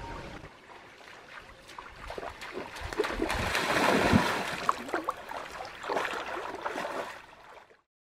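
Shallow stream water splashing hard as a person lunges into it to grab fish. The splashing builds from about two and a half seconds in, is loudest around four seconds, goes on in smaller splashes, then cuts off suddenly near the end.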